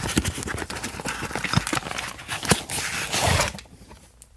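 Irregular clicks, knocks and rustling as a newly bought bearing separator set is unpacked and its parts handled, quieter in the last second.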